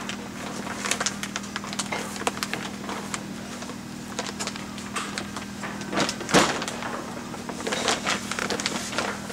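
Greenhouse roof covering being handled and fastened into clips: irregular rustles and clicks, with a louder rustling clatter about six seconds in, over a steady low hum.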